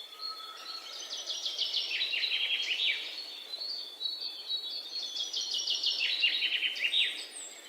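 A songbird singing: two fast phrases of rapid down-slurred notes, the first about a second in and the second about five seconds in, over a faint steady hiss.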